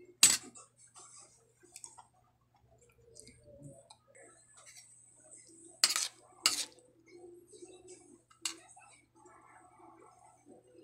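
Metal spoon clinking against a ceramic plate during eating. There is one sharp clink just after the start, two close together about six seconds in, and a lighter one a couple of seconds later, with faint scraping between.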